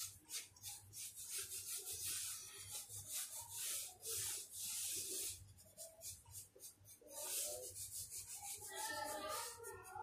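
Pencil scratching across paper in a run of strokes, some short and some drawn out, as a large oval outline is sketched.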